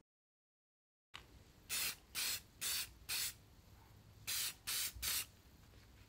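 Aerosol can of clear coat sprayed in short bursts: seven quick hisses of about a third of a second each, four in a row, then a short pause and three more.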